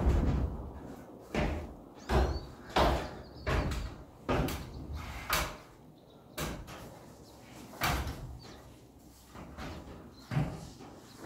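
Footsteps clanking on the rungs of a metal stepladder as someone climbs it: a run of knocks about one every 0.7 seconds, then a few scattered knocks near the top.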